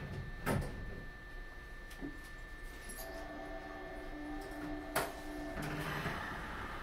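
Cab sounds of a Nishitetsu 7050 series train standing at a platform: a few sharp clicks, the loudest about five seconds in, and a steady tone lasting about two and a half seconds from about three seconds in. A rising hiss follows near the end.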